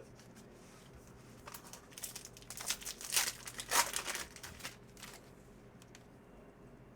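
Plastic-foil trading card pack wrapper being crinkled and handled while a pack is opened: a run of scratchy rustles starting about one and a half seconds in and dying away about five seconds in, loudest around three to four seconds.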